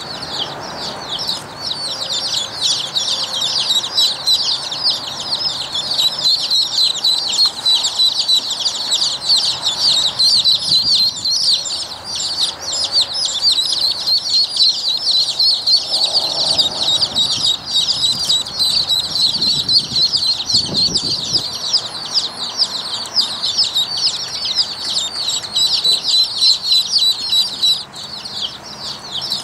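A group of Rouen ducklings peeping without pause, many short high calls overlapping.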